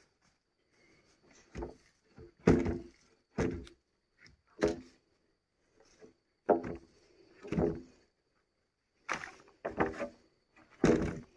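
Freshly sawn wooden boards knocking against each other and against a log as they are set down one after another: about nine hollow, ringing wooden knocks with short pauses between them.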